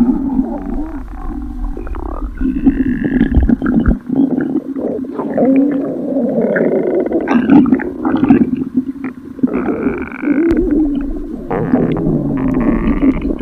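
Growling stomach sound effects: a continuous run of gurgling, rumbling stomach growls, with a few higher, wavering squeals laid over them, changing abruptly from one effect to the next about 4 s and 10 s in.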